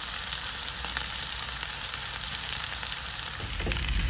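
Skin-on kobudai (Asian sheepshead wrasse) fillets and broccoli frying in olive oil and butter in a frying pan: a steady sizzle. A low rumble joins in about three and a half seconds in.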